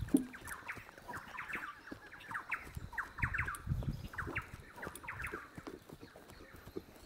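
Birds chirping in repeated quick clusters of short falling notes, with a few soft thuds of a horse's hooves on loose dirt as it trots.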